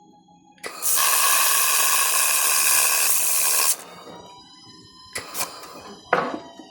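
1500 W handheld laser welder firing a weld: a loud, steady hiss that starts abruptly, runs for about three seconds and cuts off suddenly. A few sharp knocks follow near the end.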